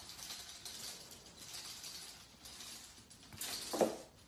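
Corgi puppy scrabbling against a wire playpen as it climbs over the top, a scratchy rattle of claws on the metal bars. Near the end comes one short, louder clatter and thump as it gets down to the floor.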